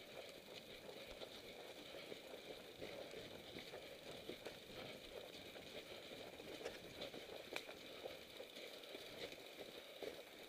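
Faint, irregular crunching of footsteps in snow as riders walk their mountain bikes up a snowy trail, with a few sharper ticks and rattles from the bikes.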